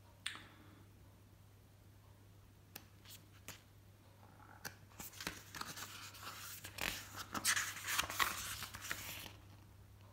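Paper pages of a booklet being handled and turned by hand: a few light clicks and taps, then about four seconds of paper rustling as pages are flipped, starting about five seconds in.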